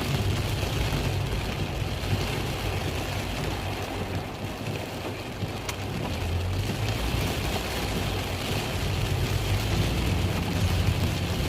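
Steady rain hiss mixed with the low hum of a vehicle engine, with a single sharp click about six seconds in.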